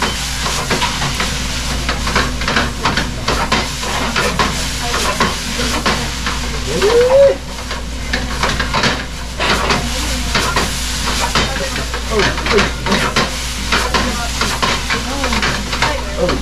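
Rice sizzling in a frying pan on a gas burner while a spatula stirs it, scraping and tapping against the pan again and again. About halfway through, a short tone rises and falls.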